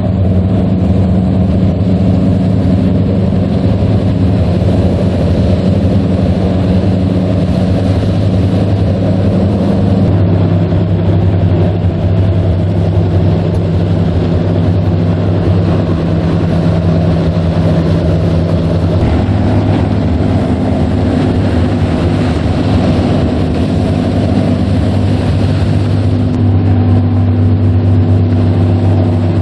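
Engines of nori fishing boats running steadily as the boats pass at speed, the engine hum shifting pitch about a third of the way in and again near two-thirds as different boats go by, with water hiss from their wakes.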